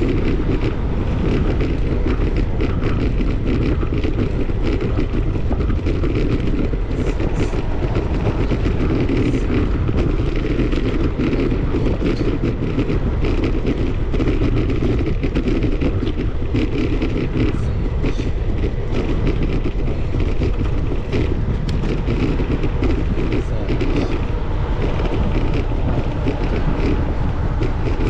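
Steady low rumble of a bicycle being ridden, from wind on the microphone and road vibration, with many small rattling clicks.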